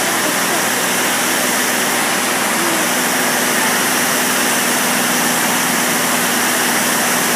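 Steady drone of a small plane's engine heard inside the cabin in flight: a low, even hum under a wide rush of airflow noise.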